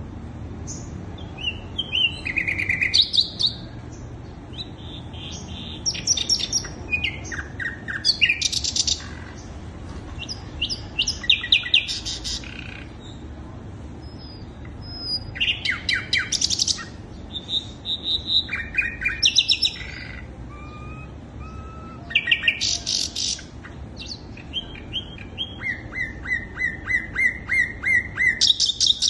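Sikatan londo flycatcher singing: short phrases of rapid, high chirps and trills that repeat every couple of seconds with brief pauses between, played as a lure song to provoke other birds of its kind to sing.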